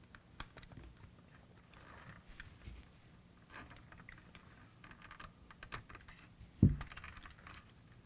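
Small scattered clicks and light scrapes of a metal nail punch working against the plastic housing and voice-mechanism parts of a toy car, with one louder knock about two-thirds of the way in.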